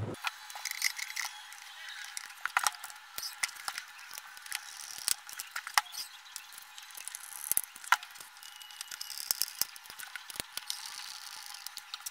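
Irregular sharp clicks and knocks of a JBL Xtreme speaker's plastic housing being handled and fitted back together, with a hand screwdriver worked against it.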